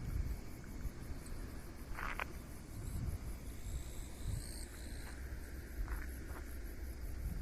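Rural outdoor ambience: insects chirping in a fast, fine high-pitched pulse over a low, unsteady wind rumble on the microphone, with a few short chirps about two, four and six seconds in.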